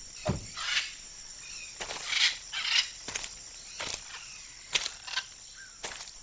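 Outdoor ambience: a steady high insect chirring, with about a dozen short rustles and clicks scattered through it.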